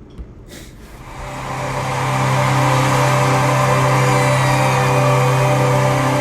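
Live concert audio fading in about a second in: a sustained low synth drone with held tones above it, under a stadium crowd screaming and cheering.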